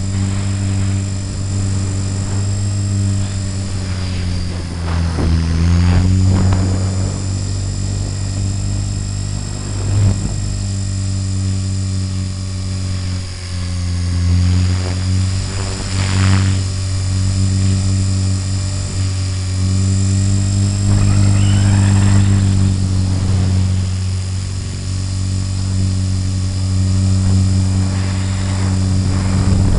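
RC helicopter's motor and rotor whirring steadily in flight. The pitch dips and recovers several times as the rotor speed changes with the flying.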